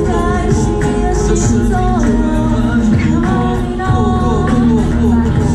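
A live band playing a pop song: several female and male singers sing over band accompaniment with electric bass, continuous throughout.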